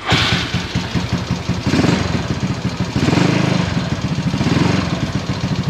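Yamaha Mio scooter's single-cylinder four-stroke engine starting and running with a rough, chattering 'gericik-gericik' rattle from the valve train: the valve clearance has opened up, which the owner puts down to the engine running hot.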